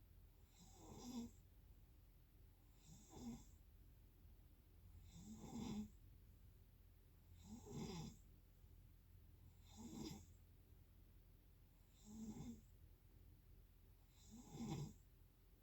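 Snoring in a slow, regular rhythm: seven snores, one roughly every two seconds, each a short rattling breath.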